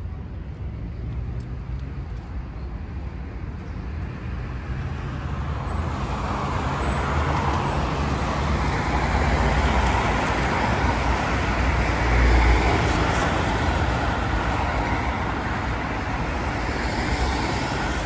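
Steady road traffic: cars passing with a continuous rumble and tyre noise, growing louder from about six seconds in, loudest around twelve seconds.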